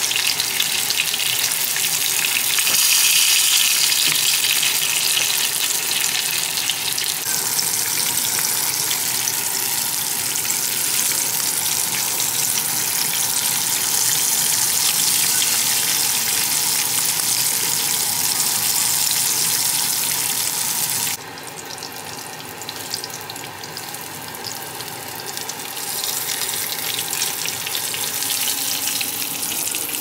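Fish pieces sizzling in hot oil in a non-stick frying pan, a loud steady hiss. About twenty seconds in it drops suddenly to a softer sizzle.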